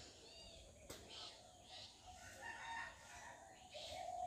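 Faint rooster crowing: drawn-out calls in the second half.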